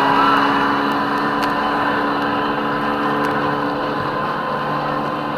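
Steady engine drone with several held tones, slowly getting quieter.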